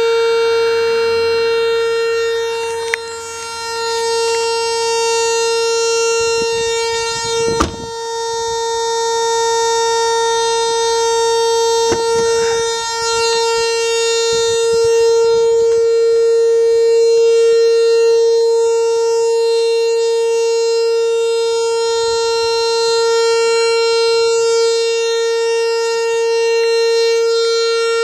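A loud, steady tone with many overtones from inside a switched-off Mercedes-Benz E550, holding one pitch without letup. It is an unexplained fault noise that the car makes on its own with everything turned off. A few brief knocks sound along with it.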